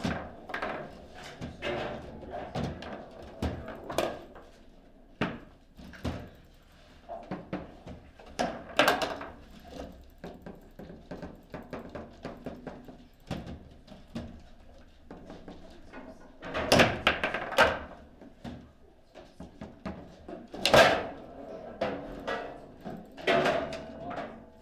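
Foosball table in play: the ball and the rods' player figures knocking and clacking in quick, irregular sharp strikes, with heavier bangs in the second half as hard shots go in and a goal is scored.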